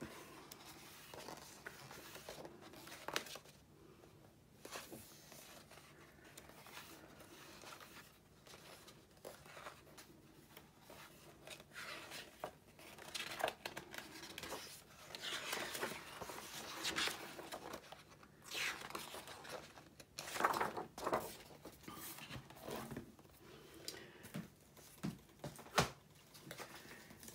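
Pages of a large illustrated hardback book being turned by hand, with a papery rustle and swish each time a page is turned, several times.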